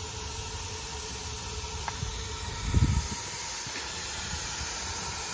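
The lit burner of a 1922 Stanley Steamer running with a steady rushing hiss. A brief low thump about three seconds in.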